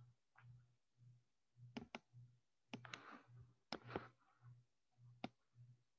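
Faint computer mouse clicks: a few short sharp clicks, two of them in quick pairs, over a faint low hum that pulses about twice a second.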